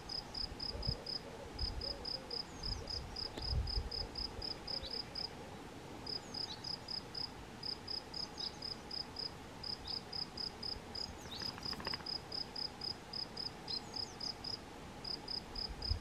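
A cricket chirping in an even pulse, about five chirps a second, in runs broken by short pauses.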